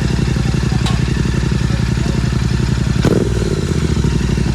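Royal Enfield Continental GT650's parallel-twin idling through Red Rooster exhausts with the dB killers removed, a steady low pulse with no revving. A single sharp knock sounds about three seconds in.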